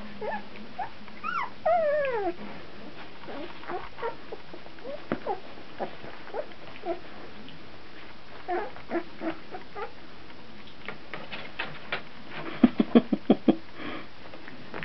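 Two-week-old Brittany puppies whimpering and squeaking as they wrestle, with a falling whine about two seconds in. Near the end comes a quick run of short, sharp sounds, the loudest part.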